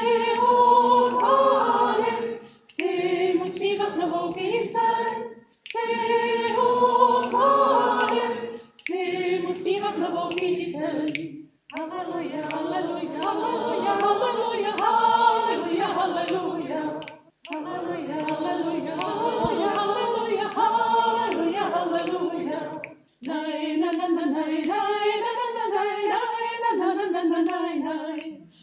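A group of voices singing unaccompanied, in phrases a few seconds long with short breaks for breath between them: a hymn sung before the opening of a Mass.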